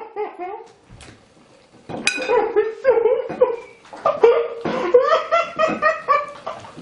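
A person laughing hard in repeated bursts of "ha" sounds: a short run at the start, then a longer, louder run from about two seconds in.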